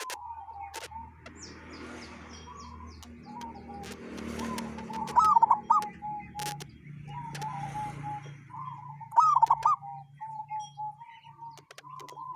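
Zebra dove (perkutut) cooing: a run of short, soft notes at a steady pitch, broken by two louder, looping coo phrases about five and nine seconds in. The bird is a local zebra dove whose call the keeper calls strange.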